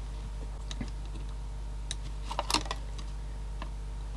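Light plastic-and-metal clicks and taps as a screwdriver tip is worked against a small Sony CD player's laser mechanism, where its rubber suspension mounts are being tested for softness. A few isolated clicks, with a quick cluster of taps about two and a half seconds in, over a steady low hum.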